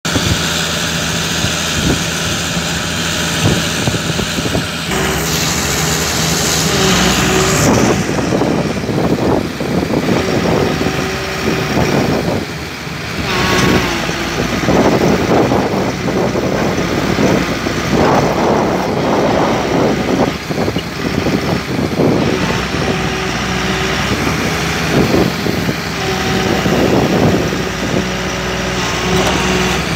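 Komatsu excavator's diesel engine running steadily, with a hiss from about five to eight seconds in.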